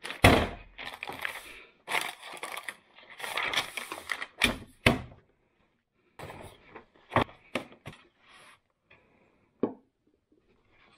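Paper and its plastic-wrapped pack rustling and crinkling as a sheet is pulled from a pack of copy paper, loudest in the first half. This gives way to lighter handling and a few sharp knocks of things set down on a wooden desk.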